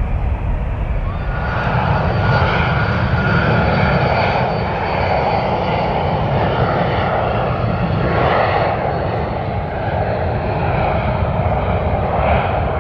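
Airbus A380's four turbofan jet engines running at taxi power as the airliner rolls past close by: a steady jet rumble with a high engine whine that comes in about a second in.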